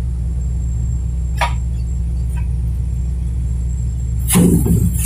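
Old tracked excavator's diesel engine idling with a steady low rumble. A short knock comes about a second and a half in, and a louder clatter near the end.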